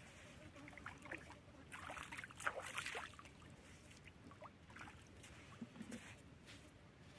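Faint water splashing and trickling, with a burst of small splashes and clicks about two to three seconds in.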